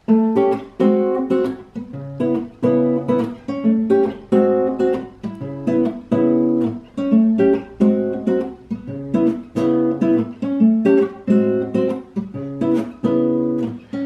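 Acoustic guitar played solo: a repeating pattern of plucked chords with a steady rhythm, the instrumental intro of a song before the singing comes in.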